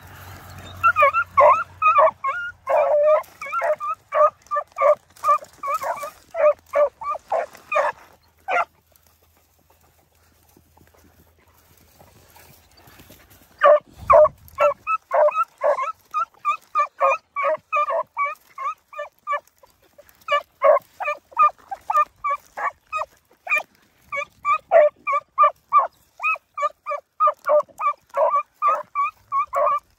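Beagle hounds giving tongue on a rabbit trail: quick, repeated barks several a second. They pause for a few seconds about a third of the way in, then pick back up and keep going.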